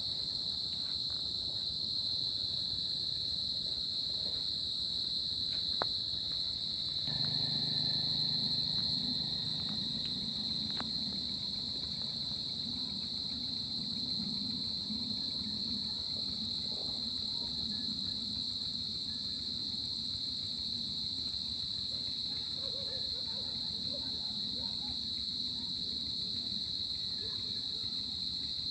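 Crickets trilling in an unbroken night chorus, a steady high-pitched ring. A low rumble joins underneath about a quarter of the way in and carries on more faintly.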